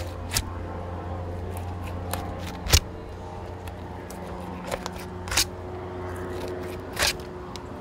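Dexter Dextreme fillet knife slicing a mutton snapper fillet off the rib cage and backbone, with about five sharp clicks and scrapes as the blade meets bone, the loudest about three seconds in, over a steady low hum.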